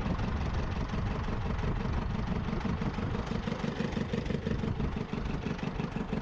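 Fishing boat's engine idling with a steady low throb.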